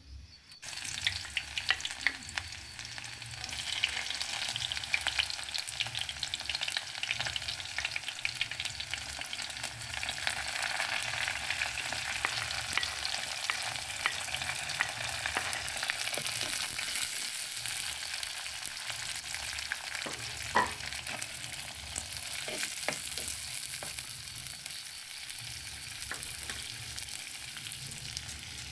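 Sliced red onions, green chillies and curry leaves sizzling and crackling in hot oil in a pot over a wood fire, stirred with a spoon. The sizzle starts suddenly about a second in.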